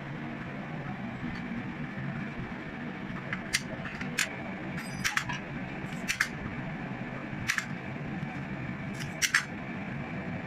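Scattered sharp clicks and taps, some in quick pairs, over a steady low hum.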